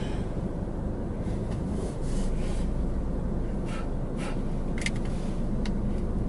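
A phone being wiped clean by hand: several short rubbing strokes, one after another, over a steady low rumble.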